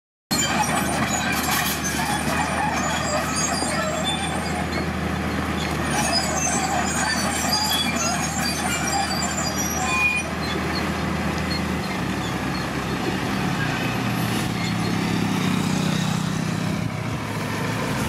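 Heavy diesel engines of a loaded dump truck and nearby earthmoving machinery running steadily. In the last few seconds a deeper engine note swells as the truck pulls forward.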